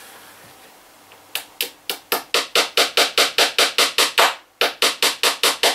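Small hammer tapping a cable clip's nail into the wall, a quick run of sharp strikes at about five a second that starts about a second in, breaks off briefly just after four seconds in, then goes on.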